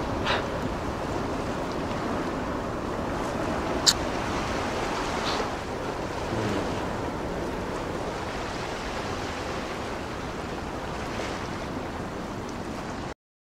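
Steady wash of ocean surf against a rocky shore, with wind on the microphone. A single sharp click stands out about four seconds in, and the sound cuts off abruptly shortly before the end.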